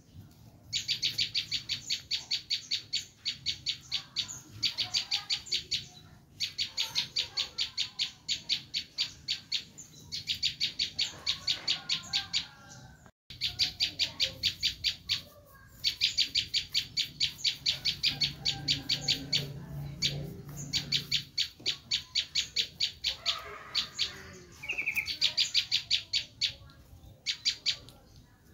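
Prenjak lumut giving its 'screaming' alarm call: rapid runs of sharp, high chipping notes, about ten a second, repeated in bursts of two to three seconds with short pauses between them.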